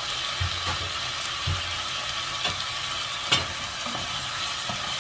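Okra stir-fry sizzling steadily in a non-stick saucepan on a gas stove, while a wooden spatula stirs it and knocks against the pan several times, the loudest knock a little past three seconds in.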